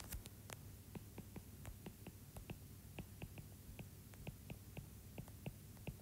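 Faint, irregular light ticks of a stylus tapping on a tablet screen while handwriting, a few a second, over a low steady hum.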